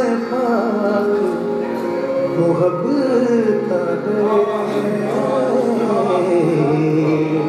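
Male classical vocalist singing a Punjabi Sufi kafi in long, ornamented melismatic runs over a steady drone from harmonium and tanpura.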